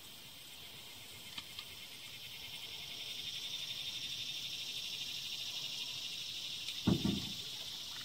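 High, pulsing insect buzz that swells over the first few seconds and then holds steady. Two faint clicks come about a second and a half in, and a single dull thump comes near the end.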